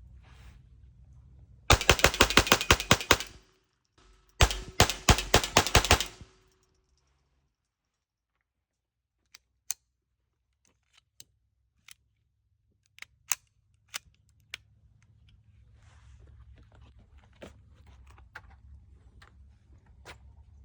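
.22 LR firearm fired in two quick strings of shots, about five or six a second, each string lasting under two seconds. A few single sharp clicks follow some seconds later.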